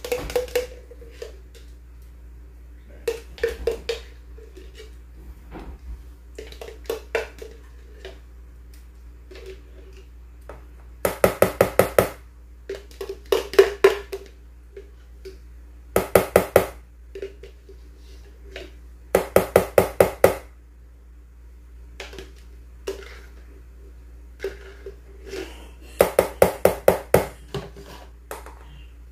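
Mayonnaise being knocked out of a plastic jar into a glass bowl: bursts of rapid tapping, six to eight taps at a time, repeated five times with a few single knocks between, over a low steady hum.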